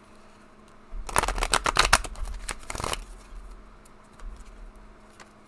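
A deck of oracle cards shuffled by hand: a rapid, dense run of card flicks starting about a second in and lasting about two seconds, then a couple of light taps.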